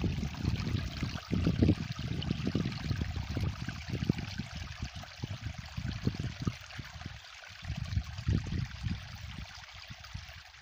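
A small trickle of water running among rocks, a steady hiss. Low gusty rumbles of wind on the microphone sit under it, loudest at first and dying away toward the end.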